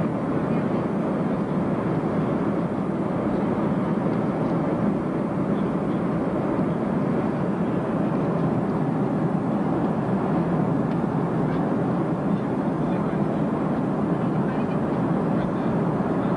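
Steady cabin noise inside a Boeing 737 in flight on its landing approach: engine and airflow rumble heard from a window seat over the wing, unchanging in level and pitch.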